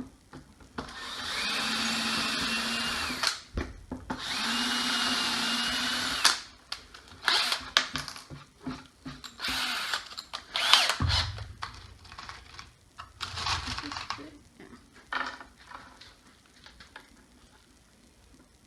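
Power drill pre-drilling pilot holes in wood: two runs of a couple of seconds each, the motor's pitch rising as it spins up. These are followed by scattered knocks and clatter of wood and tools being handled.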